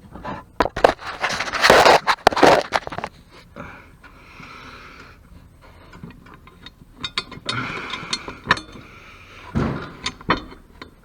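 Metal scraping and clattering as mower parts and hand tools are handled, loudest in the first three seconds, followed by scattered clicks and a short knock near the end.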